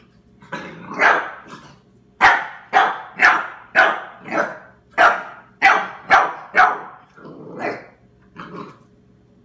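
Seven-week-old puppy barking repeatedly at a chew bone: about fourteen sharp barks, roughly two a second, with a short pause before the last couple.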